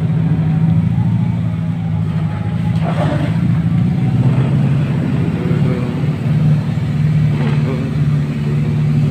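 A motor vehicle's engine running steadily at cruising speed, heard from on board while driving, with two brief noisy bursts about three seconds in and near the end.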